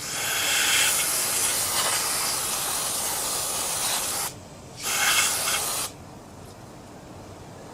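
A cleaning spray hissing onto the oily lawn mower engine to clean off the grime: one long spray of about four seconds, then a short one of about a second.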